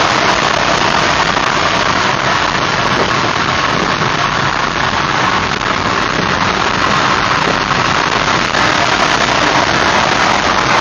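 Steady road noise inside a car cabin at highway speed: tyre and wind hiss with engine hum, mixed with a tractor-trailer running close in the next lane.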